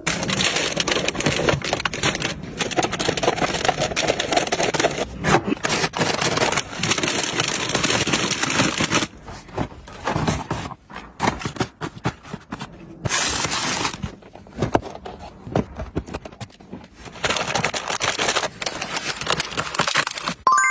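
Plastic snack wrappers crinkling as packets and small boxes are handled and set into clear plastic bins, with light clicks and knocks. It comes in stretches of dense rustling with sparser clicks between them.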